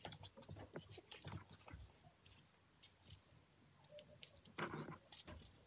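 Faint, scattered clicks and rustling from handling and movement close to the microphone, with a short rustle near the end.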